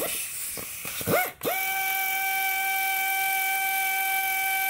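A cordless power tool driving a socket on a long extension to back out the oil pan bolts. It gives a couple of short rising whirs in the first second and a half, then spins up to a steady high whine that holds.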